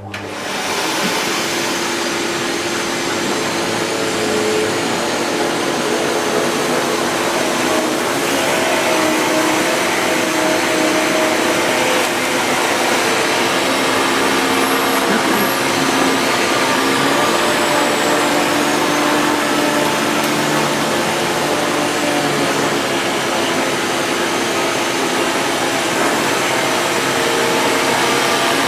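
Canister vacuum cleaner switched on, coming up to speed within a second and then running steadily with an even rushing noise and a steady motor hum.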